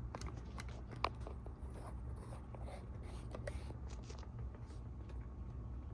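A 40-inch all-plastic Sears (Emerson) ceiling fan running with a steady low hum and irregular clicking and scratching, with one sharp click about a second in. The noise comes from its bearings, which are worn out.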